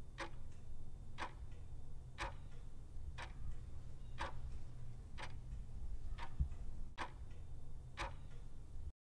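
Clock ticking sound effect, about one tick a second over a low steady hum, cutting off suddenly near the end: a countdown timer giving thinking time for a quiz question.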